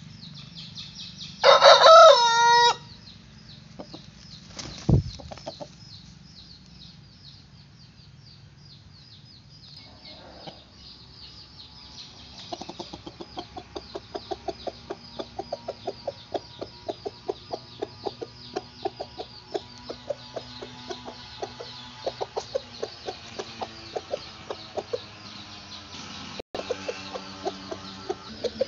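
Aseel rooster crowing once, a short loud crow about a second and a half in, followed by a dull thump. From about halfway on, a long run of quick, regular clucking, over faint high chirping in the background.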